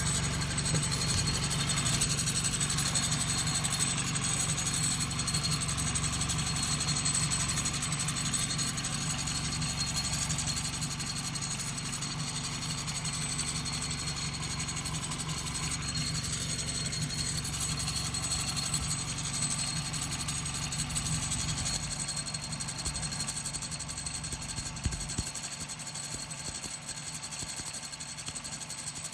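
Vehicle engine idling steadily with an abnormal jingling, chattering rattle ("chari chari") running over it: a new noise whose cause is being sought.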